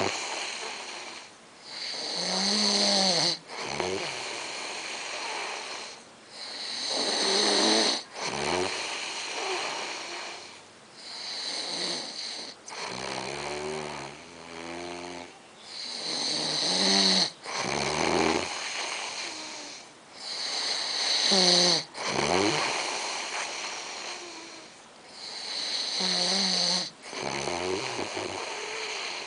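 A man snoring in a steady rhythm, about one loud snore every five seconds, some of them with a pitched rattle.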